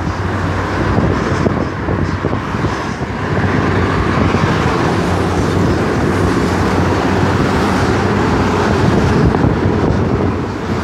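Steady, loud low mechanical rumble with a droning hum, the sound of heavy vehicle or engine noise.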